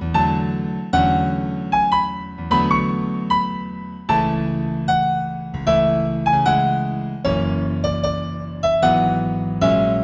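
Piano playing a slow, gentle new-age instrumental in A major. It is a melody of single struck notes, roughly one a second, each fading, over sustained low chords.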